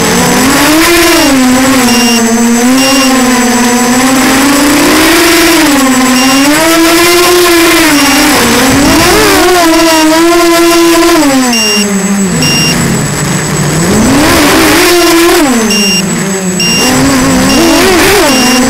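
Walkera Runner 250 racing quadcopter's four brushless motors whining in flight, the pitch rising and falling constantly with the throttle, sinking low for a couple of seconds about twelve seconds in before climbing again.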